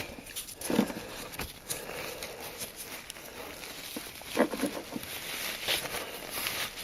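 Faint handling noises from a greased tensioner pulley being worked by hand in a shop: light taps, rubs and rustles, with short knocks about a second in and again between four and five seconds in.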